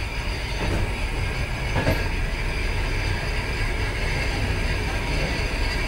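Suburban passenger train running, heard from inside a car's vestibule: a steady rumble of wheels on the rails, with a couple of sharper clacks in the first two seconds.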